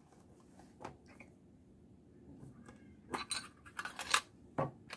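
Handling of a flint-and-steel kit: faint cloth rustling, a single click about a second in, then a run of light metallic clicks and clinks from about three seconds in as a small oval case is opened.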